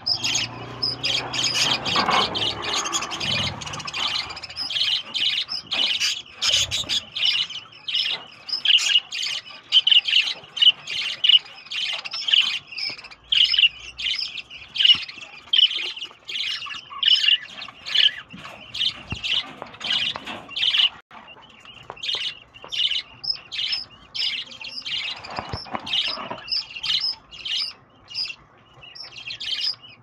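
A flock of budgerigars chirping and chattering all at once, a dense, unbroken stream of short, high calls.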